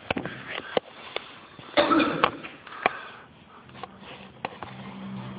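A person's sharp sniff about two seconds in, amid a few light knocks and clicks. Faint music begins near the end.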